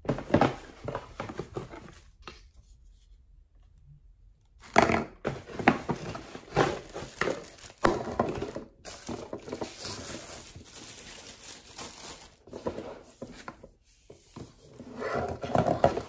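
Unpacking a hair dryer: irregular crinkling and rustling of its clear plastic wrapping and the cardboard box, with scattered sharp clicks and knocks as the box and dryer are handled.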